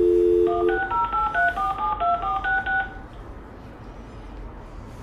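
Apartment building entry call box phone line: a dial tone for about a second, then a quick run of touch-tone keypad beeps as a unit's number is dialed, then faint line hiss while the call connects. It has the narrow, thin sound of a telephone line.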